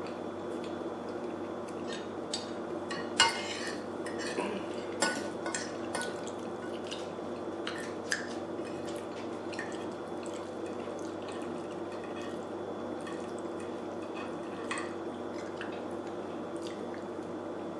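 A person eating pasta Alfredo close to the microphone: wet chewing and mouth smacks, with a few sharp clicks, the loudest about three seconds in. A steady low hum runs underneath.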